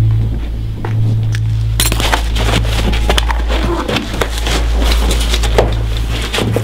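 Soundtrack of a silent film: a steady low drone, joined about two seconds in by a dense, irregular clatter of clicks and small knocks.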